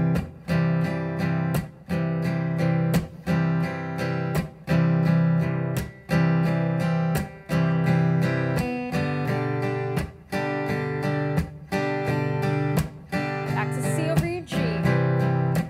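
Steel-string acoustic guitar strummed in a steady pattern, moving between C over G and G chords, with sharp percussive accents on beats two and four from the heel of the strumming hand.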